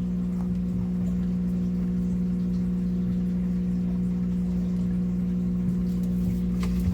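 A steady low electric hum that holds unchanged throughout, with no other sound rising above it.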